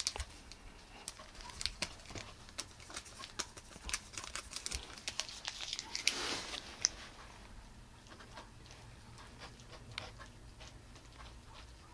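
Cats sniffing, licking and rubbing at silvervine on a carpet: scattered small clicks, scuffs and rustles, with a short louder rustle about six seconds in.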